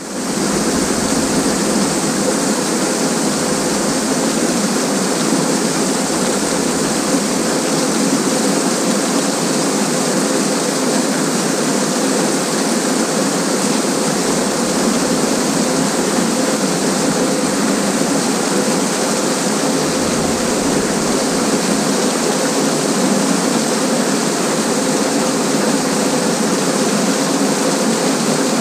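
Loud, steady rushing water, such as a mountain stream or cascade, running without a break.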